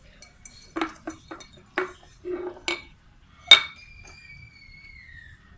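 Metal clinks and knocks on an aluminium saucepan, a handful about a second apart, the loudest about three and a half seconds in. That last strike leaves a ringing note that hangs on and sags slightly in pitch for about two seconds.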